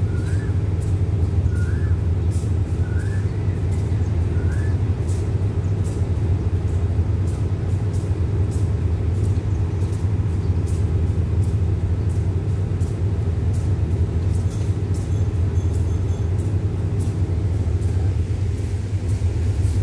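A train's diesel engine running steadily, heard from a carriage of the train: an even low drone.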